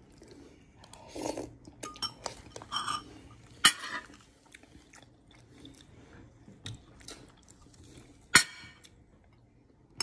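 A spoon clinking against a soup bowl now and then, with small eating noises in between; the two sharpest clinks come about four seconds in and again about eight seconds in.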